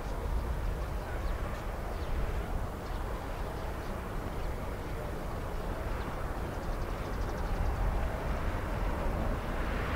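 Steady distant jet-engine noise from a taxiing LOT Boeing 787, growing a little louder near the end, over low wind rumble on the microphone.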